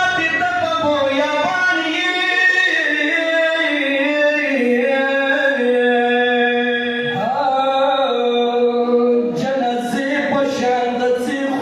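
A man chanting a mourning recitation, noha or marsiya style, with no instruments. He holds long notes and glides slowly between them.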